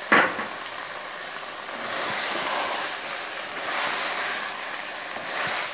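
Chicken and kachnar flowers frying in a steel pot: a sizzling hiss that swells and eases as a wooden spoon stirs them. A sharp knock comes right at the start.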